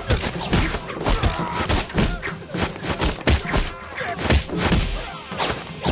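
Staged fight sound effects: a rapid series of punches, kicks and bodies slamming into furniture, about two or three heavy thuds a second, with short grunts and cries between the blows.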